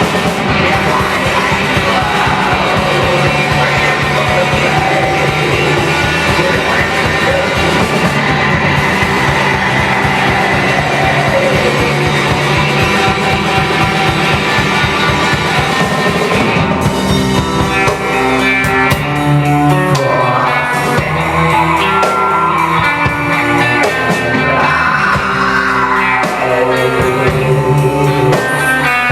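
Loud rock band music with electric guitar and drum kit, a dense wall of sound that thins about two-thirds of the way through into more distinct guitar notes.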